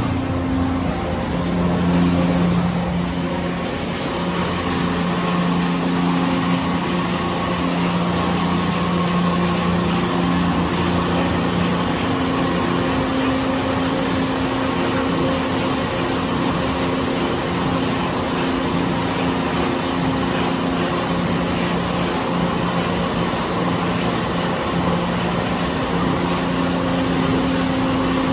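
Autec 260 car-wash gantry running with its wraparound brushes spinning against a car: a steady mechanical hum with a constant low tone under an even hiss of spray and brush noise.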